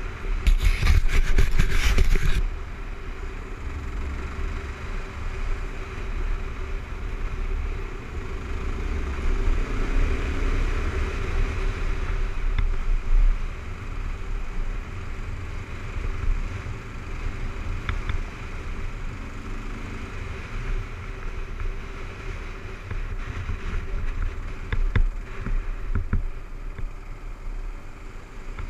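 Kawasaki KLR 650's single-cylinder engine running steadily under way on a dirt and gravel road, under a heavy low wind rumble on the microphone. About half a second in there is a loud, harsh two-second stretch of noise, and a few short knocks follow later.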